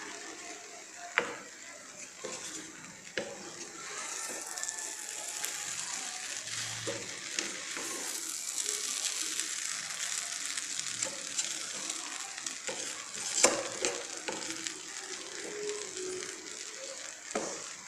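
A spatula stirring and turning dry, separate-grained cooked rice in a nonstick pan: a steady scraping rustle of the grains, with a few sharp knocks of the spatula against the pan, the loudest in the second half.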